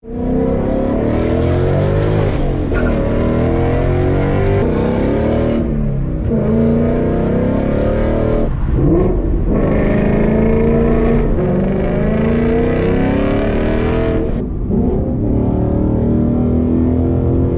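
Ford Mustang GT's 5.0-litre V8 through a Corsa Xtreme cat-back exhaust, heard from inside the cabin, revving up and down under acceleration. The loud exhaust note drops away briefly several times before picking up again.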